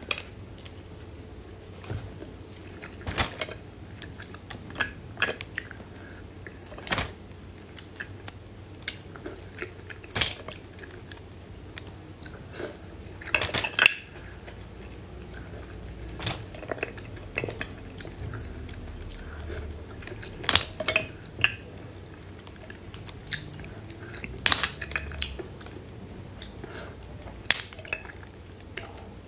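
Close-up eating sounds of oysters taken from the half shell and chewed, between irregular sharp clicks of oyster shells knocking on a plate, some in quick little clusters.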